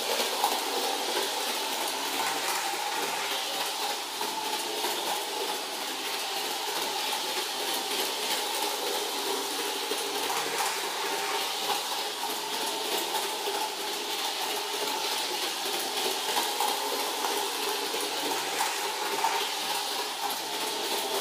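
Gilbert American Flyer 499 New Haven S-gauge electric locomotive running on metal track: a steady whir and rattle of its motor and wheels, with no pauses.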